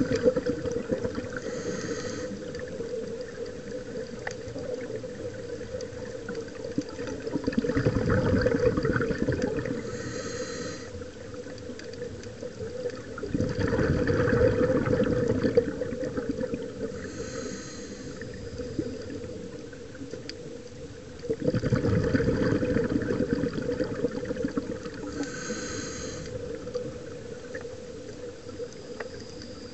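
Scuba diver breathing through a regulator underwater: exhaled bubbles gurgle out in a loud surge about every seven seconds, with a short hiss of inhalation between each, over a steady low hum.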